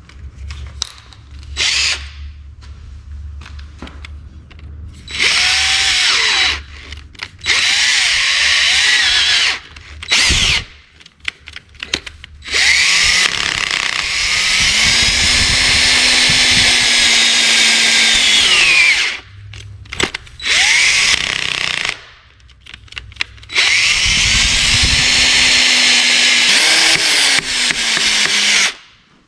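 Electric drill run in about six bursts of one to six seconds, on a drilled-out broken bolt in a cylinder head. Each burst spins up and winds down.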